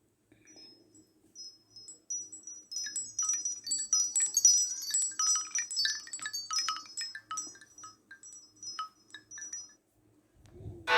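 Samsung Galaxy S10 ringtone of tinkling, wind-chime-like high notes: a few scattered at first, thickest a few seconds in, then thinning out and fading away near the end.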